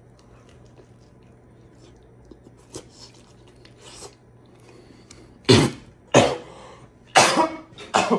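A man coughs four times in quick succession about five seconds in, after a few quiet seconds: a coughing fit from the heat of a very spicy pizza he is eating.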